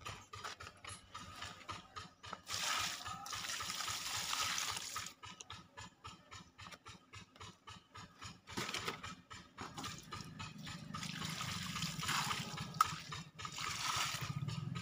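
Irrigation water trickling and running along the furrows of a vegetable bed, coming and going in soft stretches.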